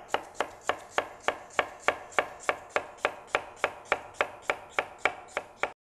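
Chef's knife thinly slicing half a red onion on a white plastic cutting board: an even run of crisp cuts, about three or four a second, each stroke ending with the blade tapping the board. The cutting stops abruptly near the end.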